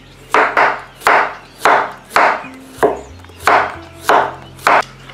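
Chef's knife slicing zucchini into thin rounds on a wooden cutting board: about nine quick cuts, roughly two a second, each a short sharp stroke that knocks on the board.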